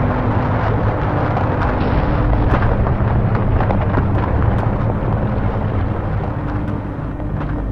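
Deep-sea bottom trawl gear dragging across the seabed: a loud, continuous rumble with dense crackling and scraping.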